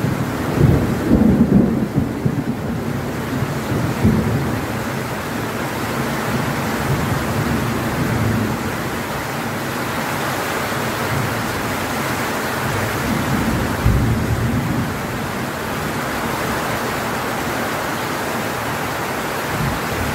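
Heavy tropical rain pouring steadily on leaves and corrugated metal roofing, with low rumbles of thunder in the first few seconds and again about fourteen seconds in.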